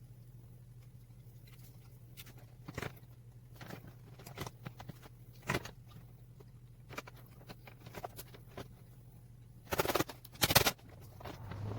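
Scattered clicks and knocks of hand work on a car's differential cooler fittings, over a steady low hum. Two louder, noisy bursts come near the end.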